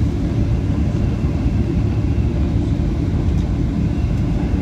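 Steady low rumble of a Boeing 737-800 cabin during the approach to landing: CFM56-7B engines and airflow over the airframe, with no distinct bumps or changes.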